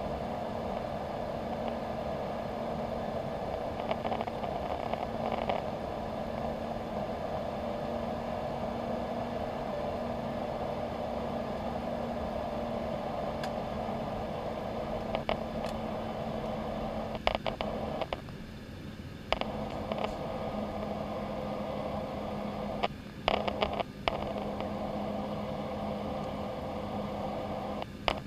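Steady airliner cabin noise in cruise: the jet engines and the rush of air over the fuselage, with a constant hum under it. A few brief clicks and rattles come past the middle.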